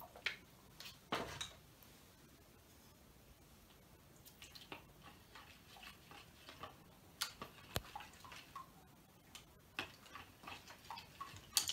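Faint, scattered clicks and taps of a metal spoon knocking and scraping in a plastic bowl while PVA glue slime is stirred. There are a couple of sharper clicks in the first second or so, then a looser run of small ticks from about four seconds in.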